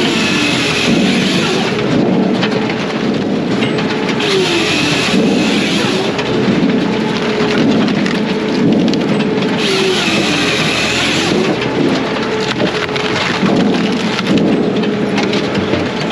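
Brute Force USA 18-24HD diesel firewood processor running through its cycle: a steady mechanical tone that dips in pitch and recovers every few seconds, with a harsher hissing wash coming and going about every four to five seconds.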